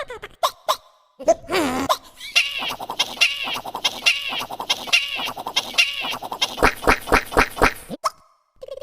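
Chopped, heavily effected cartoon audio: a short high-pitched sample repeated about twice a second, breaking into a fast stutter near the end.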